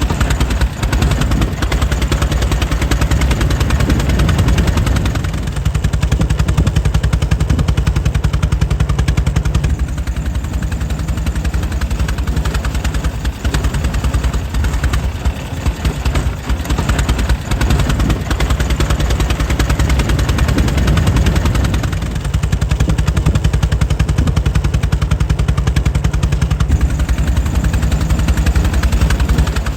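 The air-cooled engine of a 1904 Mitchell car running steadily, its firing a rapid, even train of pulses.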